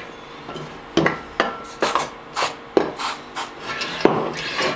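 Stainless steel manual chip cutter being cycled by its lever handle: the pusher slides along its guide rods with a metal-on-metal rub and scrape, and about eight irregular sharp clacks as the handle and plate reach the ends of the stroke. The slide has just been sprayed with food-grade silicone where it was catching.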